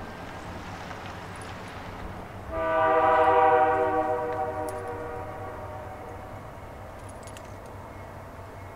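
Diesel freight locomotive's air horn sounding one long blast about two and a half seconds in, fading away over the next few seconds, part of its warning for a level crossing. Beneath it runs the low, steady rumble of the approaching train's engines.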